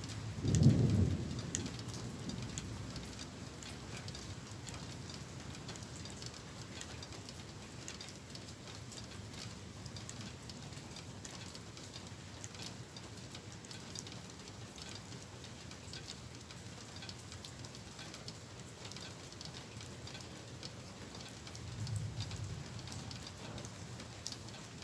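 Steady rain with drops ticking close by. About half a second in comes a loud low clap of thunder that rolls off over a couple of seconds, and a fainter rumble of thunder comes near the end.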